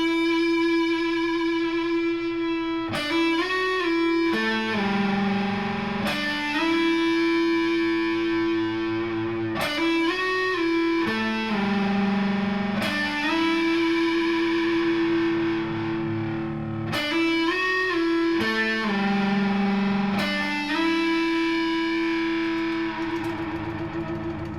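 Electric guitar on its neck pickup through a one-knob fuzz pedal and two clean amps with a little reverb, playing a repeated riff of long, sustained fuzzy notes with short bends. The last note starts to fade near the end.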